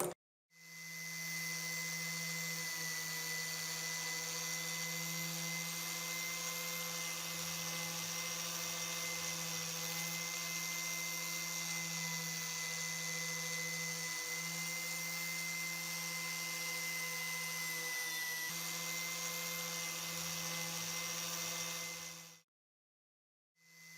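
Electric power tool motor running steadily at one speed, a constant whine over hiss. It cuts off abruptly near the end, and after a second of silence starts again.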